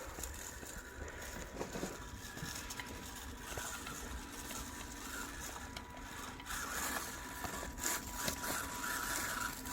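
Micro 1/24 scale RC crawler's F130 electric motor and geared transmission whirring faintly as the truck crawls over rocks, with light scrapes and clicks of the tyres on stone. It gets louder about two thirds of the way in.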